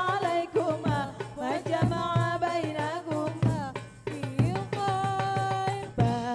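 Live band music recorded straight from a mixing desk: a melodic line of bending and long held notes over a steady drum beat, with a brief lull about four seconds in.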